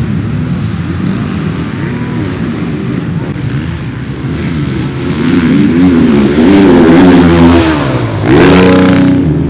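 Motocross dirt bike engines revving up and down as the bikes race over the track. The sound grows louder about halfway through, and near the end one engine's pitch climbs sharply as a rider opens the throttle.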